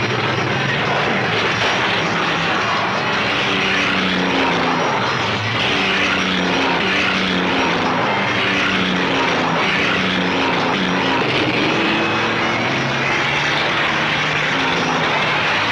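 Several racing car engines droning together, their pitches rising and falling as they rev and ease off, under a steady hiss.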